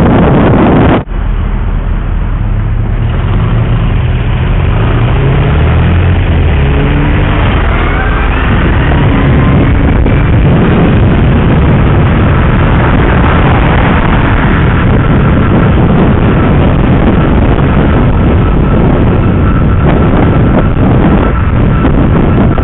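Wind rushing over the microphone while riding an electric bike, with a brief drop about a second in. From about two seconds to nine seconds a vehicle's tone rises steadily in pitch as it speeds up.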